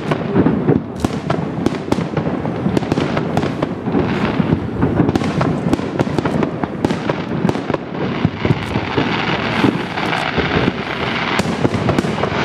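Aerial firework shells bursting in rapid succession during a display finale, a dense run of overlapping bangs.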